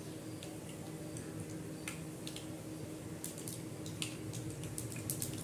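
Mustard and cumin seeds popping and sputtering in hot oil and ghee in a steel kadai: the tempering is under way. Scattered sharp pops come more often from about three seconds in.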